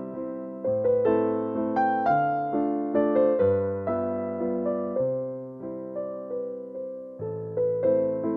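Background music: an electric piano playing a calm melody over chords, each note struck and fading, with new notes about every half second.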